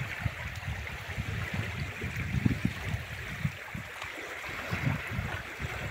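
Small waves on a river lapping and washing over a pebble shore. Under it runs an irregular low rumble of wind on the microphone.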